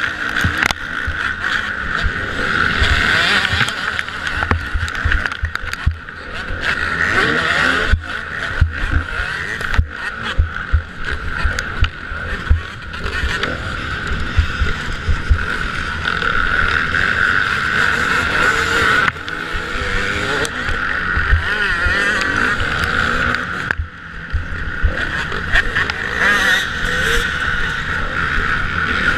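Onboard sound of a Kawasaki motocross bike's engine running hard, heard through an action camera mounted on the bike, rising and falling with the throttle and dropping off briefly a few times. Wind rumble and low knocks on the microphone run under it.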